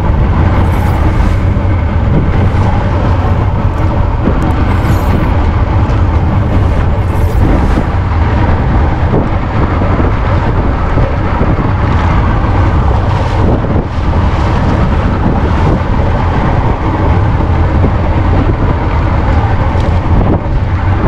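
Loud, steady low rumble of a boat at sea, with no clear change or break.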